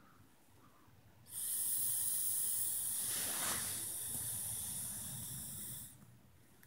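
Vape pen hissing as it is drawn on: one steady high hiss of air and vapour through the device, lasting about four and a half seconds, starting about a second in and stopping sharply near the end.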